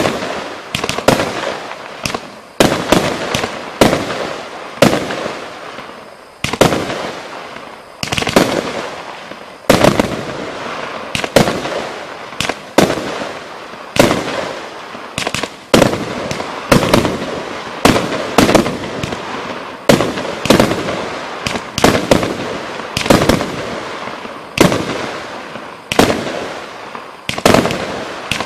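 A 146-shot consumer firework cake firing a steady volley of shots, about one a second and sometimes two close together. Each shot is a sharp bang with a fading tail.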